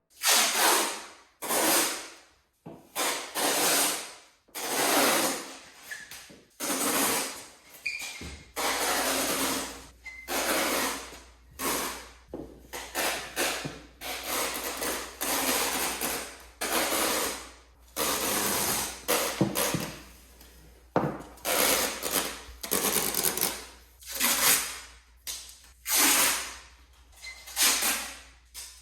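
Masking tape being pulled off the roll in short ripping pulls, one after another, each a brief burst of tearing noise with short pauses between.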